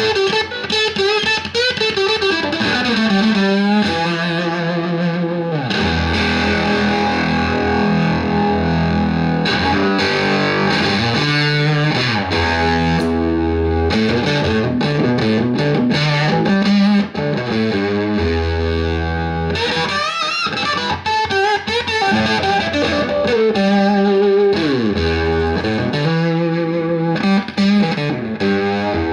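Electric guitar played through a BYOC Octave Fuzz kit pedal, a Roger Mayer Octavia-style octave-up fuzz, into a Marshall JCM2000 DSL401 combo amp. It plays a blues-rock lead line of held notes with string bends and some sustained low notes.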